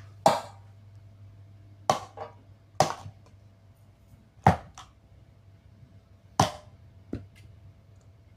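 A Mr. Coffee coffee maker being struck, about six sharp blows one to two seconds apart, each with a short ring.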